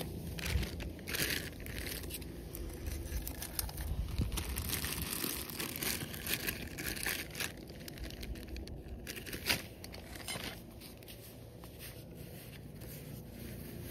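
Close rustling and crinkling, with many short clicks and soft knocks, as of material being handled near the microphone; it grows quieter about ten seconds in.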